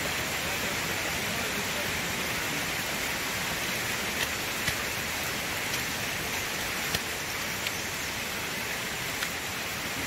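Steady rushing hiss of a shallow mountain stream running over rocks, with a few scattered light clicks of hikers' shoes on stones.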